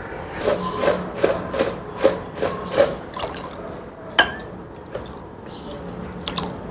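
A metal ladle clinks against a ceramic bowl of blood about seven times in quick succession, roughly three a second, as the blood is stirred and scooped. Two more single sharp knocks follow later.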